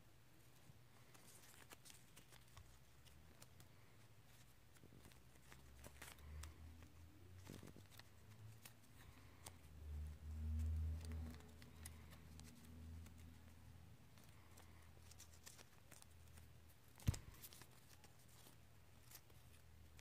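Faint light clicks and rustles of a paper butterfly knife being flipped in the hand. A low rumble swells about ten seconds in, and a single sharp click comes about seventeen seconds in.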